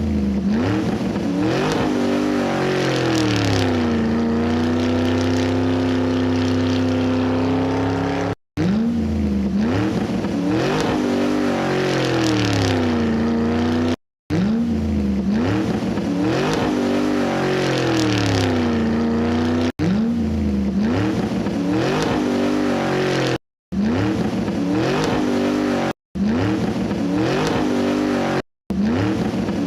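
Car engine revving up and dropping back again and again, its pitch rising and falling, in stretches that cut off abruptly every few seconds.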